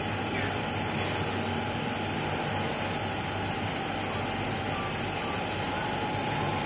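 Steady hum and hiss of a garment workshop's machinery and fans, with a constant thin whine running through it and no separate knocks or clicks.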